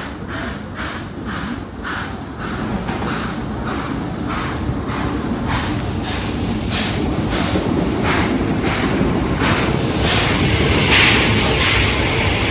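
C11-class steam tank locomotive C11 325 drawing slowly into a station, a steady beat about twice a second over the rumble of the train, growing louder as it approaches. Steam hisses as the cab passes, about ten seconds in.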